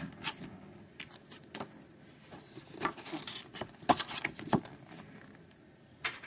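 Paper sheets being handled, with irregular short crackles and rustles as they are lifted and moved.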